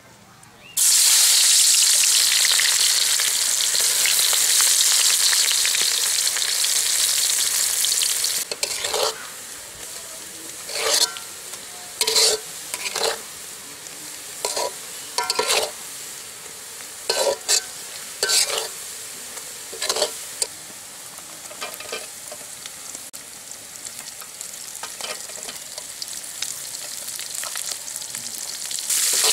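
Sliced onions frying in hot oil in an aluminium wok: a loud sizzle starts suddenly about a second in, then settles to a steadier sizzle while a metal spatula scrapes and stirs against the pan in a run of sharp strokes. The sizzle flares louder again near the end as green chillies go in.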